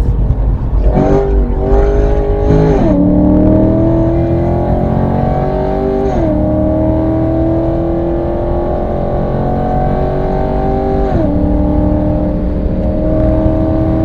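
Chevrolet SS's 6.2-litre LS3 V8 pulling hard under acceleration, its note climbing through each gear with three upshifts, about three, six and eleven seconds in, each a sudden drop in pitch.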